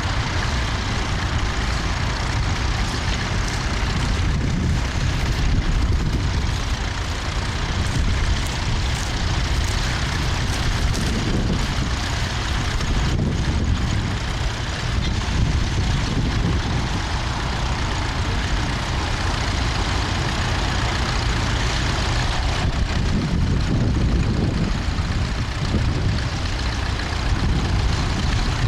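Tractor engine running steadily, with a continuous low rumble.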